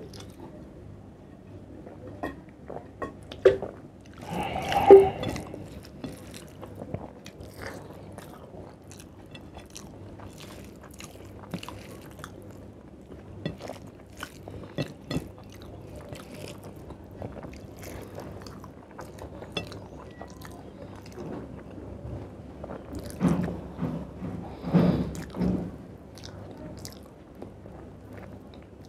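Close-up eating sounds of a man eating rice and chicken curry with his hand: wet clicks and smacks as his fingers mix the food, and chewing. There is a louder drink from a plastic water bottle about four seconds in, and louder bites and chewing on a chicken leg near the end.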